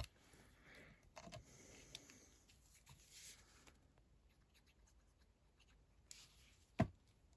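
Faint rubbing and rustling of hands working thin paper on a craft table, with one sharp tap near the end.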